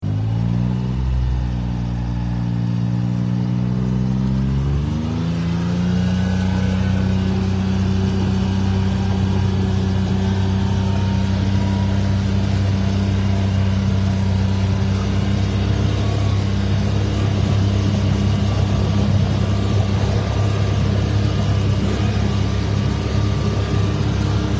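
Engine of a small roofed utility vehicle running, its pitch climbing about four to five seconds in and then holding steady.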